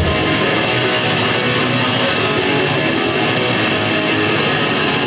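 Rock band playing live on electric guitars, bass guitar and drums, a steady loud wall of strummed guitar.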